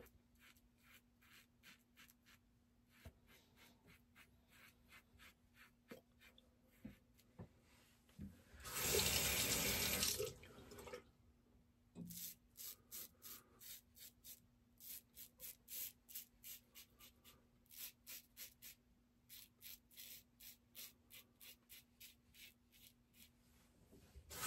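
Safety razor shaving lathered stubble in short strokes, a quick scratch of the blade two or three times a second, during an across-the-grain pass. Around the middle the strokes stop and a tap runs into a sink for about two seconds.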